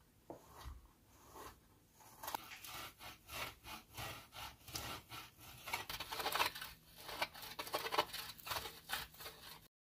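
A block of cheese grated on a stainless-steel box grater: a run of rasping strokes, sparse at first, then about three a second and louder from about two seconds in, stopping abruptly near the end.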